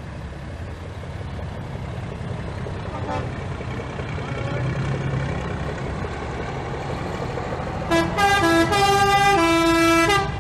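Diesel semi tractors pulling away at low speed, their engines running with a steady low rumble. About eight seconds in, a truck's air horn sounds loud for about two seconds, playing several quick changing notes like a musical horn.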